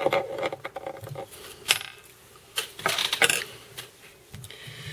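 Rapid light clicks and small metallic clatter of fly-tying tools being handled at the vise and set down, with the sharpest strikes near the middle.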